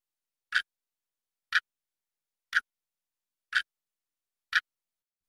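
Countdown-timer tick sound effect: five short, sharp ticks, one each second, with silence between.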